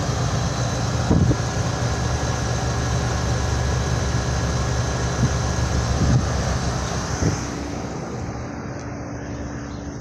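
Comfort Maker outdoor heat pump condensing unit running: a steady compressor hum with fan air noise, the fan turning slowly. The sound gets quieter about seven and a half seconds in.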